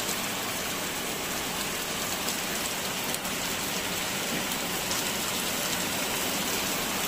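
Very heavy rain pouring down steadily, splashing onto a wet lane and standing water.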